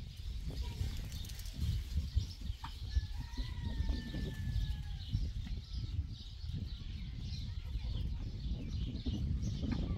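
Many small birds chirping continuously, with one drawn-out, slightly falling call lasting about two seconds near the middle, over a low rumble.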